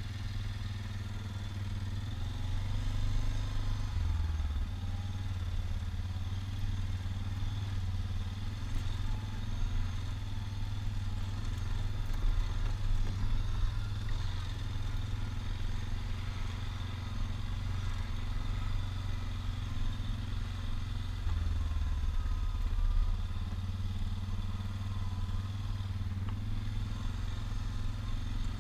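Suzuki KingQuad ATV's engine running under way, heard from on board, with mild rises and dips in engine speed as the throttle changes.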